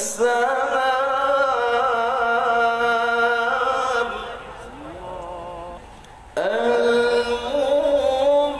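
A man reciting the Quran in melodic tajweed style: one long held, ornamented phrase for about four seconds, a short pause, then a second phrase beginning about six seconds in.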